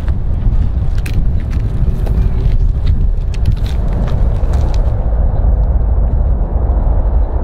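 Jet engines of a four-engine airliner running on the runway as it rolls along it: a deep, steady rumble, with some crackle in the first few seconds.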